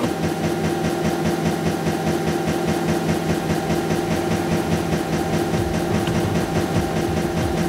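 A droning electronic loop with several held tones and a rapid, even pulse: a Roland SP-404 MK2 sample processed through a Chase Bliss MOOD MK2 looper pedal.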